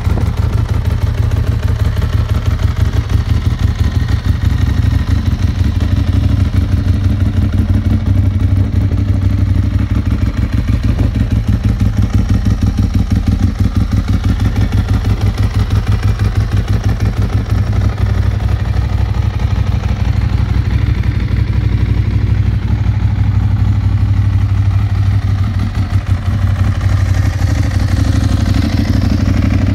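Ducati 1098S's 1099 cc L-twin engine, breathing through carbon-fibre Termignoni exhausts, running steadily at idle with a deep, even pulsing note.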